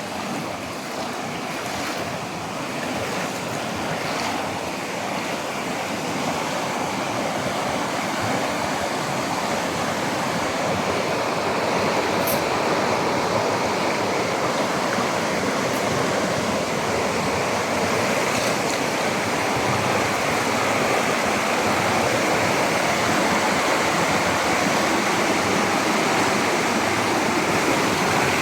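Rushing water of a canyon stream, a steady rush that grows gradually louder.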